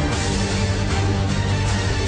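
Music with sustained deep bass notes and percussion hits.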